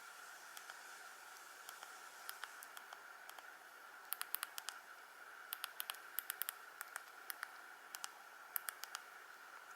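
Faint hiss with short sharp clicks, a few at first and then in quick runs from about four seconds in, typical of a Nokia 113's keypad buttons being pressed.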